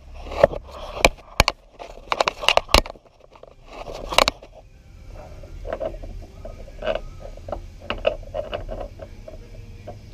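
Metal parts of a Yamaha SVHO supercharger drive being handled on the shaft: a run of sharp clicks and scrapes, then softer, quicker rattling taps from about halfway through.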